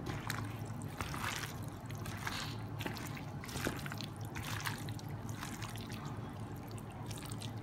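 Gloved hand squishing and turning chicken pieces in a thick, wet tomato-and-chili marinade in a bowl: irregular wet squelches and smacks, over a faint steady low hum.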